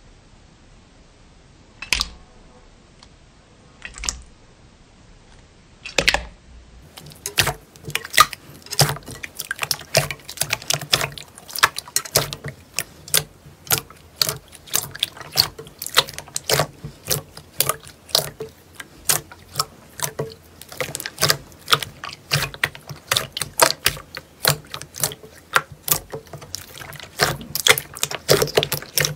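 Slime being squeezed and poked by hand: a dense run of wet, sticky clicks and pops that starts about seven seconds in. Before that, a few single sharp clicks about two seconds apart.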